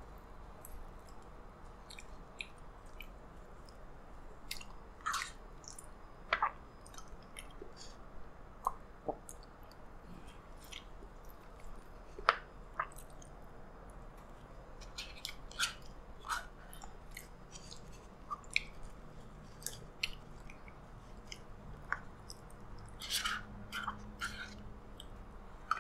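Close, soft eating sounds of mashed potato in beef sauce: wet chewing and lip smacks, with a plastic spoon now and then clicking and scraping in a paper cup.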